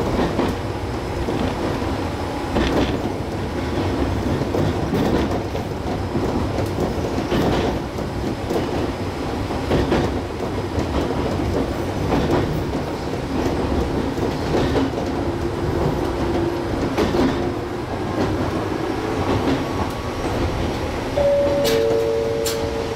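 Gakunan Railway electric train running along the line, a steady rumble with wheels clicking over rail joints about every two and a half seconds. Near the end a brief steady two-note tone sounds.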